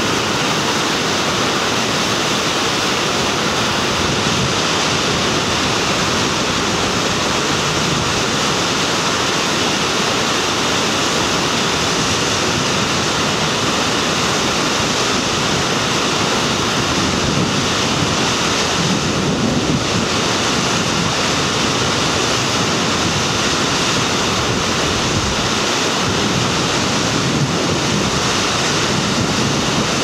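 Steady, loud rushing of a big whitewater rapid on a mountain river, an even wash of water noise with no breaks.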